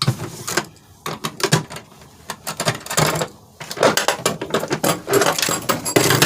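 Irregular clicks, knocks and rattles of a car wiring harness and a plastic module being handled and pulled loose, coming in quick clusters and stopping abruptly at the end.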